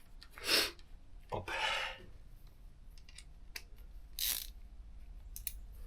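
Hand-tool work on a motorcycle: a ratchet wrench clicking in short runs, with a few brief scrapes of parts being handled.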